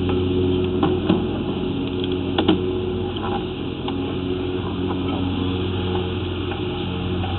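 Steady low engine or motor hum, with a few faint clicks and knocks.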